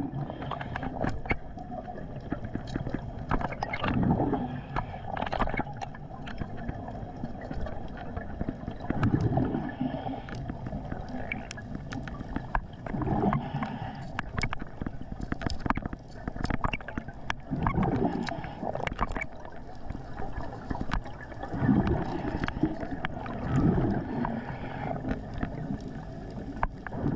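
Underwater sound of a diver breathing out: bubbles gurgle in a surge every few seconds over a low rumble. Sharp clicks and scrapes come through as the diver hooks shellfish off the seabed.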